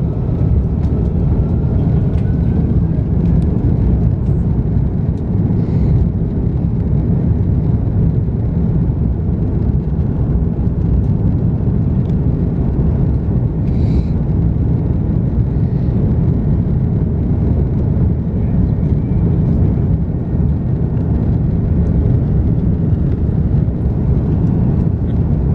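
Steady, loud low rumble inside the cabin of an Airbus A330-200 taxiing on the ground: engines at low taxi power and the undercarriage rolling over the taxiway.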